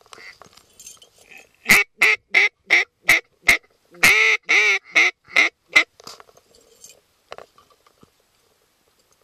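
Duck quacking in a mallard's pattern: a run of about eleven loud quacks, evenly paced, starting about two seconds in. Around four seconds in, one quack is drawn out longer, and the run stops a little before six seconds.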